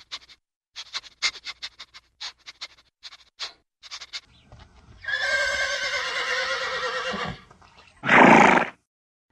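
A horse whinnies in one long, wavering call lasting about two seconds, then about a second later gives a short, loud snort. Before the whinny there is a run of quick, soft clicks.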